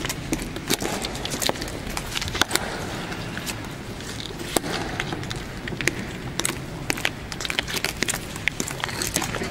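Irregular sharp clicks and light knocks over steady low room noise.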